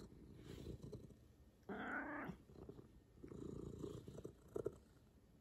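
A domestic cat purring, with one short meow about two seconds in.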